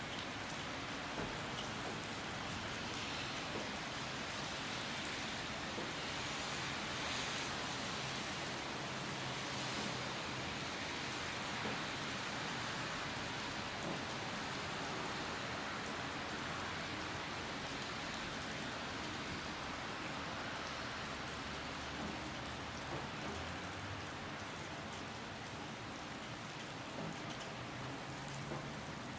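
Steady rain falling, a constant hiss with scattered individual drops ticking on surfaces.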